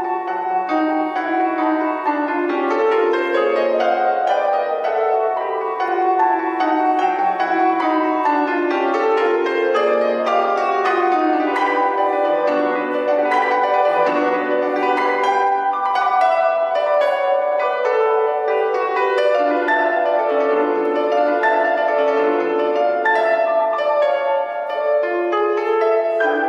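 Solo grand piano playing a flowing classical passage of quick notes that sweep up and down in pitch in waves.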